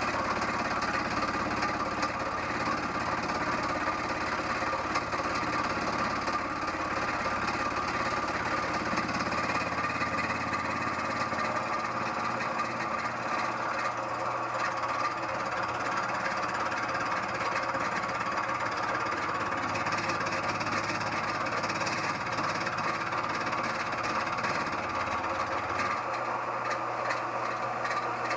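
Harbor Freight mill-drill-lathe combo running with a fly cutter taking a facing cut across a metal block: steady machine noise with a rhythmic knocking from the cutter.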